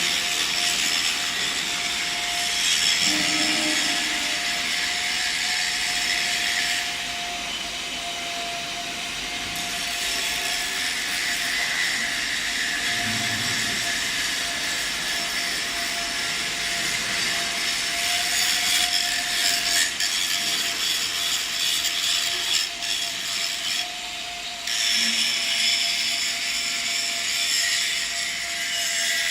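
Automatic submerged-arc pipe welding machine running on a stainless steel pipe cap pass: a steady hiss over a held mid-pitched tone. The hiss cuts out for a couple of seconds about seven seconds in, and again briefly near the end.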